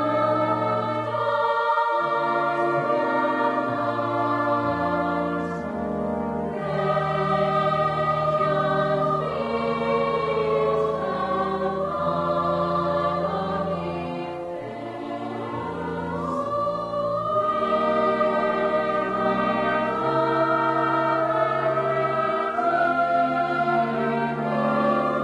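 Choir singing a slow piece in harmony, with long held notes.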